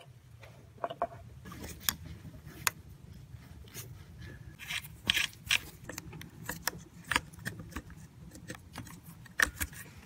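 Scattered plastic clicks, scrapes and rustles of gloved hands seating ignition coil packs on a Honda V6, with a steady low hum underneath.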